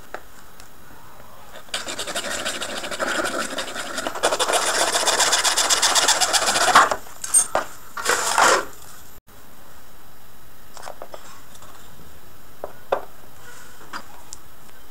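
Hacksaw cutting through a PVC pipe in quick back-and-forth strokes, growing louder as the cut deepens. It is followed by a few short scrapes of the cut pipe end being rubbed on sandpaper.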